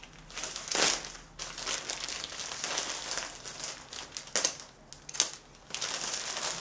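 Plastic courier mailer bag crinkling and rustling in uneven bursts as it is cut open and handled, with a few short clicks; the loudest rustle comes about a second in.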